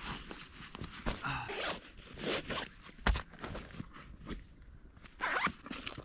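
A zipper pulled open in several short strokes, with rustling of gear as a pack is unpacked.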